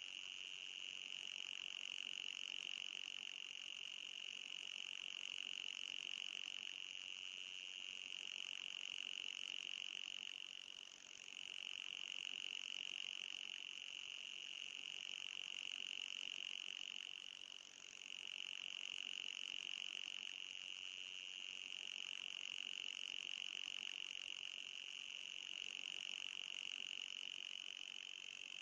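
Electronic anti-mosquito repeller tone: a steady high-pitched whine with a fainter, higher band above it. It dips briefly twice, about eleven and eighteen seconds in.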